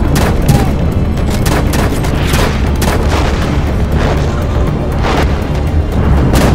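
Battle sound effects of WWI-era rifle fire: several sharp rifle shots at uneven intervals over a steady low rumble, with a film music score underneath.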